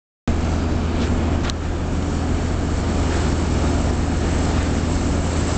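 Diesel engine running steadily with a low drone, with a couple of light clicks about a second in.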